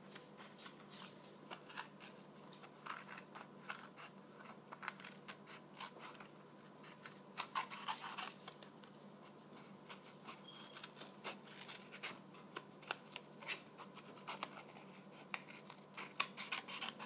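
Small scissors cutting paper: a run of short, irregular snips as the blades work around a shape.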